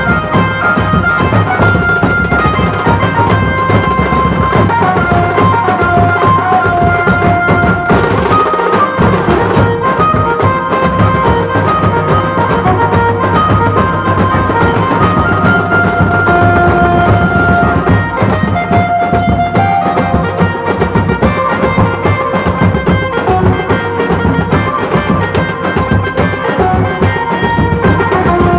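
Loud Indian processional band music: drums beating steadily under a melody line.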